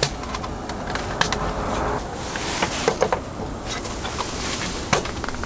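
Handling sounds as a power cable is worked into the AC socket of a 1200 W lithium iron phosphate (LiFePO4) portable power bank: a few sharp clicks and knocks, the last about five seconds in, over a steady hiss.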